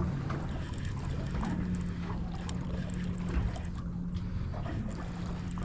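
A boat's engine running steadily, a low hum, with wind and water noise.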